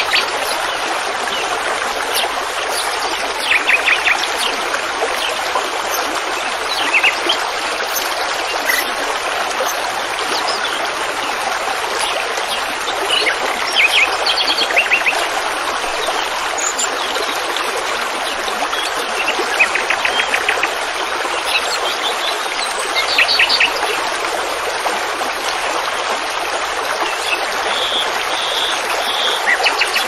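Steady rush of running water, as from a stream, with small birds chirping in short trills every few seconds.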